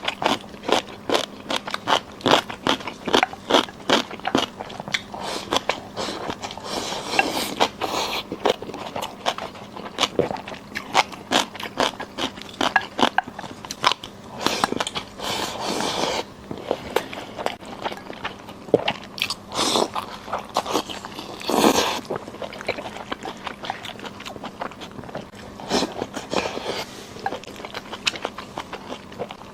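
A person chewing and crunching food: a rapid run of crisp crunches, several a second, broken by a few longer, noisier stretches of chewing.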